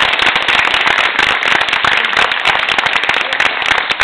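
Audience applauding: many people clapping together in loud, steady applause.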